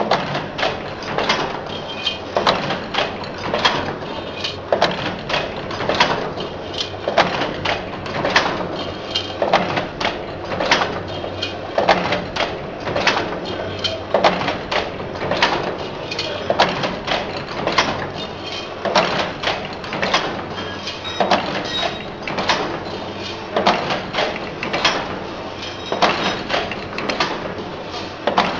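Automatic wire-forming machine running, making U-type bucket handles: its forming slides and dies clank in a regular rhythm, more than one stroke a second, over a steady motor hum.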